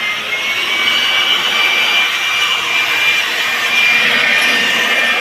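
Pressure washer spraying a high-pressure water jet: a steady hiss of water with the pump motor's high, even whine.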